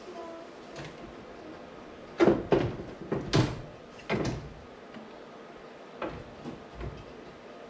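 Knocks and scrapes of a car part being handled and pushed into a tight spot in the car: a cluster of sharp clunks about two seconds in, then a few lighter knocks near the end.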